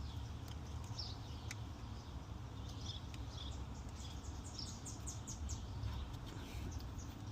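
Birds chirping in the background, with a quick trill of falling chirps about halfway through, over a low steady rumble.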